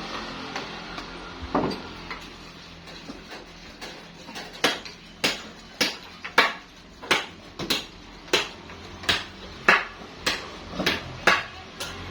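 A hammer striking metal, about a dozen sharp, even blows, roughly three every two seconds, starting a few seconds in after a few lighter knocks.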